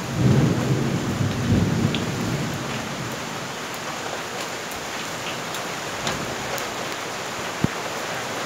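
Thunder rumbling, loudest in the first two seconds, then dying down under a steady hiss of rain. A single short knock near the end.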